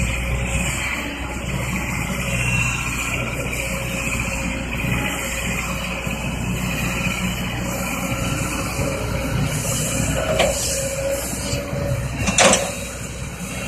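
Kobelco excavator's diesel engine running steadily with a low rumble, with two sharp metallic clanks late on, the second the louder.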